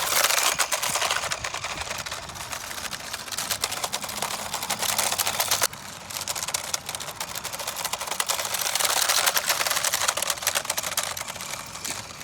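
Small 1/16-scale RC car driving over rough, gravel-strewn pavement: a dense, rapid clatter of its little plastic tyres and chassis rattling over grit, with a sudden break about six seconds in.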